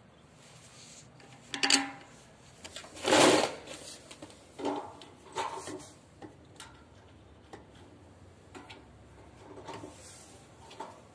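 Plastic LNB holder and LNB being fitted onto a satellite dish's feed arm: a few short plastic knocks and scrapes, the loudest a brief scrape about three seconds in, followed by lighter clicks as the parts are seated.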